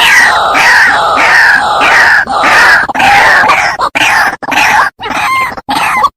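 White-breasted waterhen (ruak-ruak) calling loudly: a fast run of harsh croaking notes, each dropping in pitch, about two a second, breaking into shorter separate notes with brief gaps near the end.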